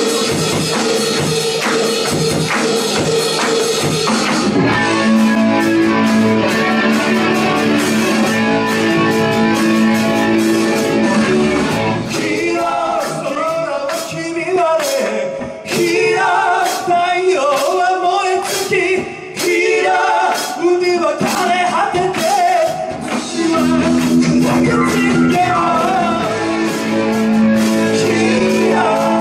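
Live rock band playing a Japanese rock kayō cover, a dense drum-heavy passage giving way about four seconds in to held guitar chords, with a melody line over them in the middle.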